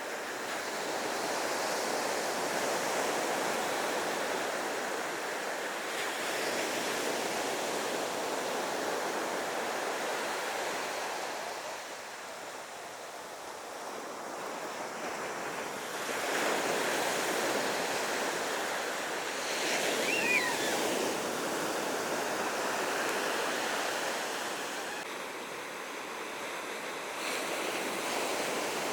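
Ocean surf washing onto a beach: a steady rush of breaking waves that swells and eases every several seconds. About twenty seconds in, a brief high call rises over it.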